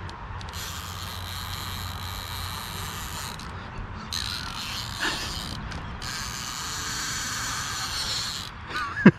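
Fishing reel ratcheting in three long runs of fast clicking, with short breaks between them, while a hooked channel catfish is fought on a hard-bent rod. A short sharp knock comes near the end.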